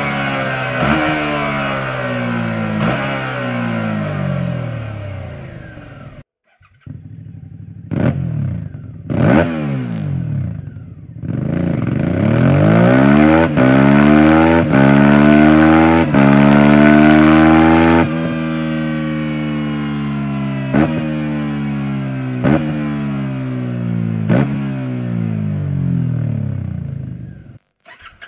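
Suzuki V-Strom 650's V-twin engine revving and running, first through its stock exhaust, then, after a brief break about six seconds in, through an Akrapovic aftermarket exhaust. In that second part a few short throttle blips are followed by the revs climbing, held high, then slowly falling with repeated blips, before the sound cuts off near the end.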